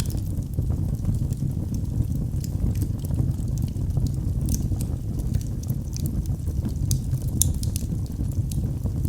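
Wood fire burning in a fireplace: a steady low rumble of flame with frequent small, irregular crackles and pops.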